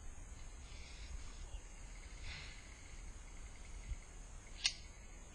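Quiet outdoor background with a low rumble, a soft hiss about two seconds in, and a single sharp click near the end.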